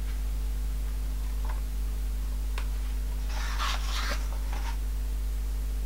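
A hardcover picture book being opened: a couple of light taps, then a rustle of paper pages from about three and a half to nearly five seconds in. A steady low hum runs underneath.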